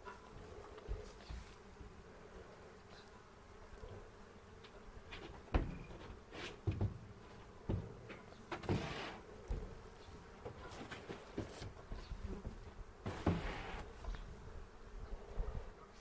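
Honey bees buzzing around an open hive, a steady low hum, with scattered knocks and a couple of longer scraping noises over it; the sharpest knock comes about five seconds in.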